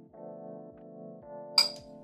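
Background music with steady sustained tones, and a single sharp clink about one and a half seconds in as a metal whisk strikes the glass mixing bowl.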